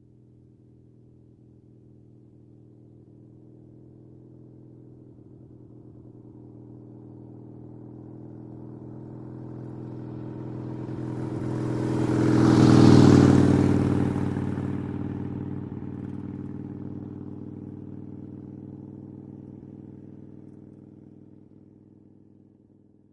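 Harley-Davidson V-twin motorcycle passing by at a steady 30 mph: its engine builds slowly as it approaches, is loudest about halfway through, then fades away.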